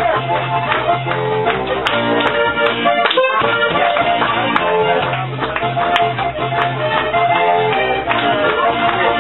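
Live volkstümliche (Alpine folk-pop) music from acoustic guitar and keyboard, with a steady bass line. The bass drops out briefly about three seconds in.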